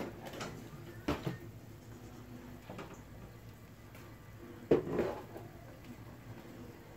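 Two knocks from a kitchen door being opened and shut: a short one about a second in and a louder, sharper one near five seconds with a brief ring after it.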